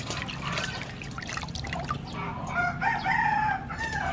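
A rooster crows once, starting about two-thirds of the way in, its call ending on a falling note. Under it come wet splashing and squelching from hands rubbing young green peppercorns in a bowl of water.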